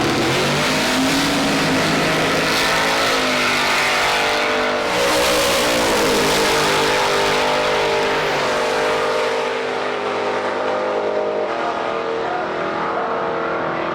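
Chevy Nova drag car's ProCharger-boosted 540 cubic-inch V8 running hard at high revs. Its pitch climbs and drops back several times, as at gear changes.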